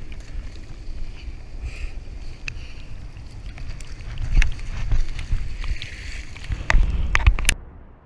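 Surf whitewater rushing and fizzing around a kayak, with wind buffeting the camera microphone as a low rumble. Several sharp knocks come about halfway and again near the end, and the sound cuts off suddenly just before the end.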